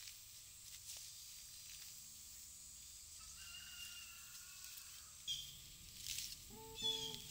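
Faint garden ambience with a distant bird call a little past three seconds in, and a few light rustles and snaps of plants being picked. Acoustic guitar music starts near the end.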